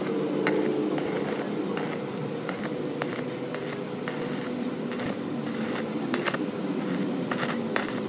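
Stick arc welding on the steel shell of a refrigerator compressor: the electrode crackles and sizzles as it runs a bead along the seam joining the dome to the lower shell, the crackle coming in uneven spurts.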